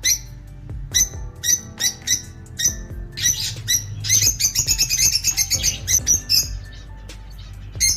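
Lovebirds chirping: sharp, high chirps, with a fast run of chattering notes for about three seconds in the middle.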